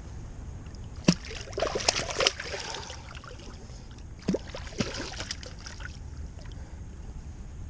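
Hooked mirror carp thrashing and splashing in shallow creek water, in two flurries, about a second in and again around four to five seconds in, over a steady low rumble.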